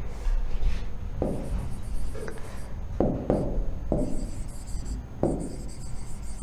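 A marker writing on a board: several short strokes, about a second apart, as a word is written out.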